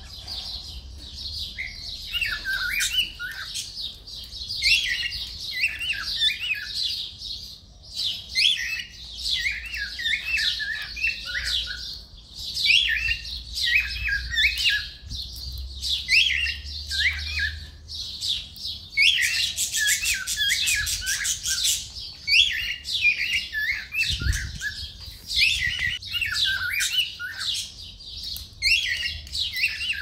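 Cockatiels chirping and calling in a near-continuous stream of short notes that bend up and down in pitch, with a quick run of rapid clicking chatter about twenty seconds in.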